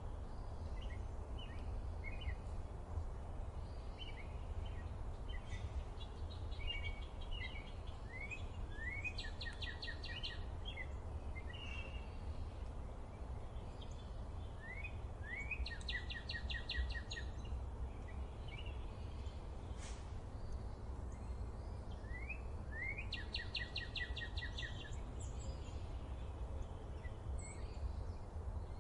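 Small songbirds chirping over a steady low outdoor rumble. Three times, about seven seconds apart, one bird sings a phrase of a few quick rising notes running into a fast trill.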